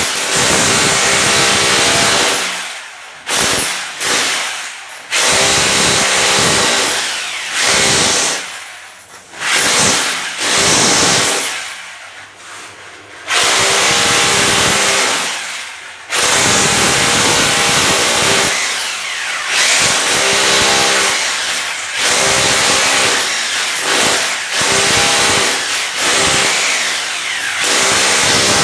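Handheld electric power tool run in repeated bursts of a few seconds, its motor winding down with a falling pitch each time it is released.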